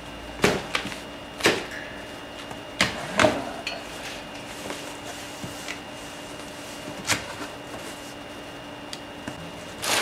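Plastic packing straps snapping as they come off a cardboard box, four sharp snaps in the first three and a half seconds, then cardboard flaps being folded open with a few knocks and scrapes.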